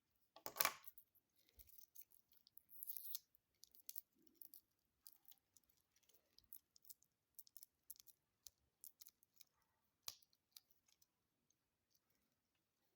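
Stainless steel watch and bracelet being handled: scattered small metallic clicks and clinks, with a louder rattle about half a second in and a sharp single click about ten seconds in.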